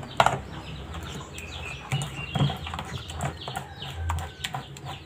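Metal spoon stirring thick flour batter in a plastic bowl, with repeated light clicks and scrapes against the bowl. Birds call repeatedly in the background.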